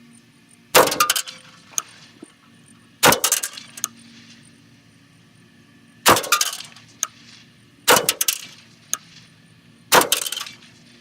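AR-15 rifle firing five single shots about two to three seconds apart, each followed by a short echoing tail, with a few faint clicks between shots.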